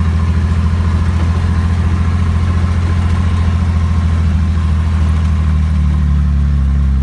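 Diesel engine of a 1985 Ford F-14000 truck running on a straight-through exhaust pipe, a loud, deep, fast-pulsing exhaust note that holds steady and evens out slightly near the end.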